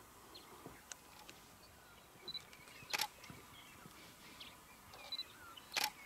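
Two camera shutter clicks, one about three seconds in and one near the end, each shortly after a short high beep, over faint scattered bird chirps.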